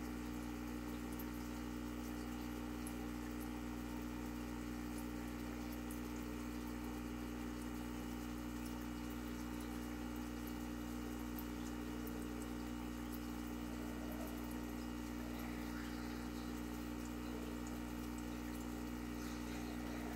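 Steady electric hum of aquarium equipment, a pump or filter, with a faint hiss of moving water and no change in level.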